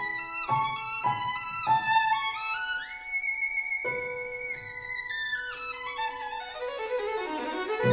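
Background music: a melody of short notes slides up to a long, high note with vibrato about three seconds in, then steps back down.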